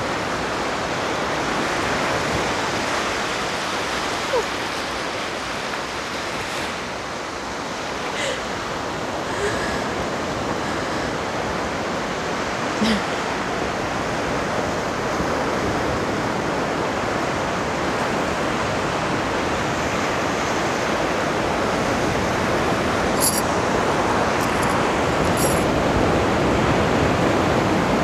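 Steady rush of sea surf breaking on a beach, an even roar with a slight swell in loudness near the end. A few faint small clicks sit on top of it.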